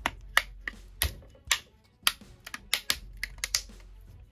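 Fabric grille of a JBL Grip Bluetooth speaker being pried off with a pry tool: a quick, irregular run of about a dozen sharp plastic clicks and snaps as the grille's clips pop loose.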